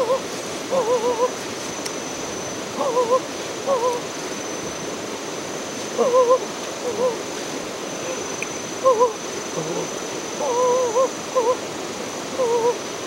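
A bird calling again and again in short, wavering two- and three-note phrases, over a steady hiss and a faint high insect drone.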